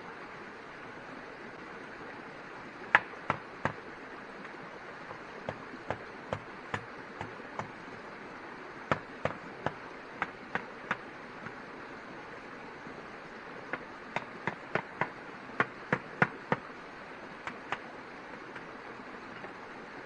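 Sharp knocks in irregular runs of three to nine strokes, about three a second, the loudest a few seconds in, over a steady rushing background noise.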